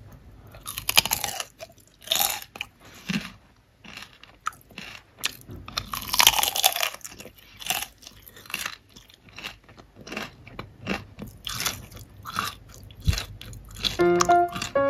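Crispy fried potato chips being bitten and chewed, an irregular string of crunches. Piano music starts near the end.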